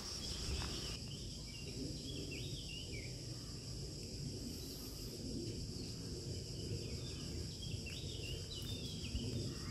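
A steady high-pitched insect chorus with a few short bird chirps, about two to three seconds in and again near the end, over a low rumble.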